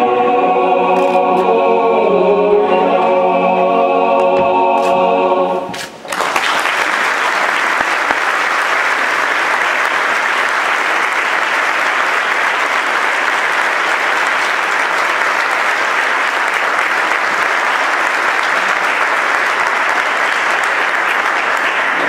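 A mixed choir sings the final held chord of a piece, cutting off about six seconds in; the audience then applauds steadily until the end.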